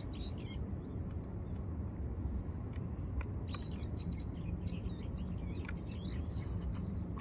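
Small birds chirping in short, quick calls again and again over a steady low outdoor rumble, with a few faint clicks.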